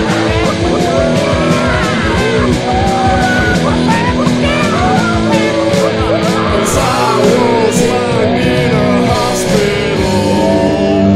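Loud rock band music: a fast, steady drumbeat under electric guitar and a singing voice.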